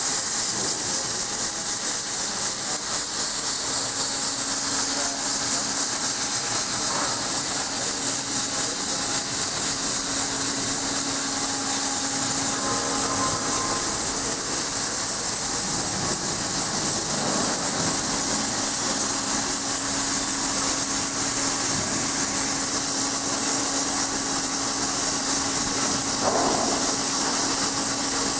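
MUBEA CNC plate drilling machine running: a steady high hiss with a steady low hum underneath.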